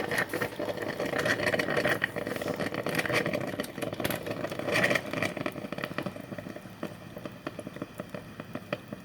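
Black+Decker Brew 'n Go personal drip coffee maker near the end of its brew cycle, hot water bubbling and crackling through the heater. The sound thins to scattered pops after about five or six seconds as brewing finishes.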